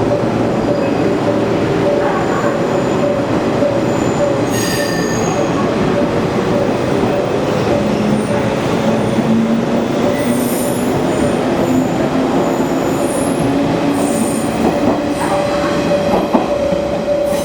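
Electric train running through the station, with high wheel squeals at several points and a motor whine that rises in pitch about halfway through. Underneath, the station's level-crossing warning sounds as a steady continuous tone, unlike the usual crossing bell.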